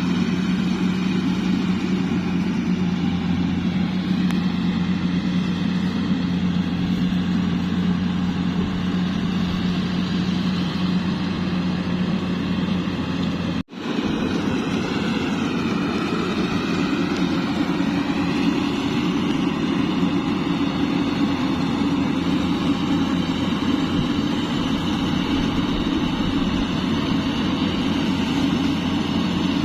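Diesel engine of a Yanmar AW70V combine harvester running steadily, with a brief sudden dropout about halfway through. Just after the dropout the engine note wavers slightly for a few seconds.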